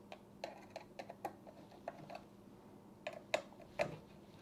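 Faint, irregular small clicks and ticks of a screwdriver turning the spring-loaded Phillips-head nuts that clamp an AIO liquid cooler's pump block onto the CPU, a few of them louder a little after three seconds in.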